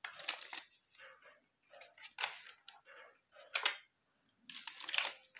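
A deck of tarot cards being shuffled by hand: soft, irregular swishes and taps of the cards sliding against each other, with a longer run of them near the end.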